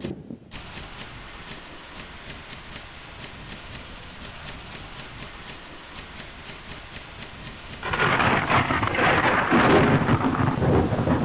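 Steady rain, with a loud, long rolling peal of thunder about eight seconds in.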